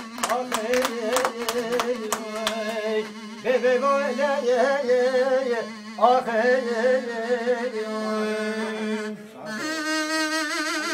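A man singing a wavering, ornamented melody with a short wooden reed pipe playing along, with even hand claps for the first couple of seconds.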